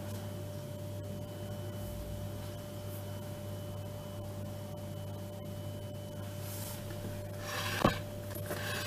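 A steady low hum. Near the end, a ceramic cake plate is shifted on a granite countertop, giving a few short scraping rubs and one sharp knock about eight seconds in.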